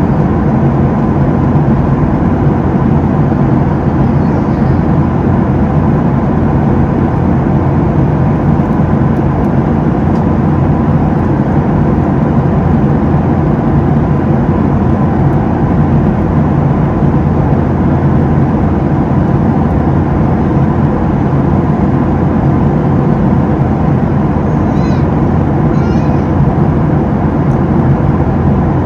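Boeing 737-700 cabin noise in flight: the steady rush of air and drone of the CFM56-7B engines, with a constant low hum underneath.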